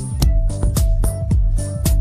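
Background music with a steady drum beat, bass and melody.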